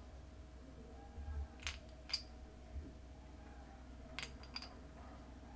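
Faint light clinks of a metal spoon against a small glass bowl of ground pepper: two about two seconds in, three more just after four seconds, over a faint steady hum.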